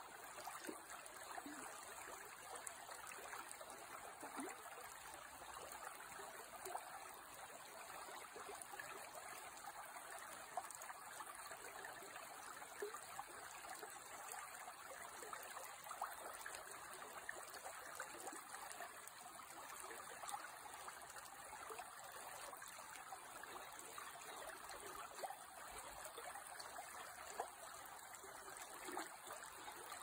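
Shallow creek running over a riffled bed: a steady babble of flowing water with small splashes throughout.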